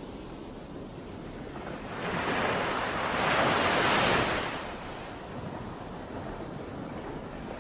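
Ocean waves breaking on the shore: steady surf hiss with one wave building about two seconds in, crashing loudest around three to four seconds, then washing back.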